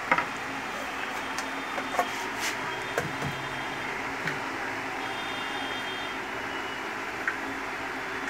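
Several light knocks and clinks of an iron sewing-machine stand's frame parts being handled and fitted together, the sharpest one right at the start, over a steady background hum.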